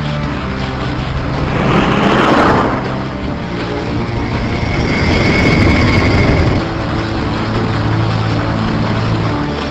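Motor vehicle engines running, with a vehicle whooshing past about two seconds in and a high steady whine in the middle.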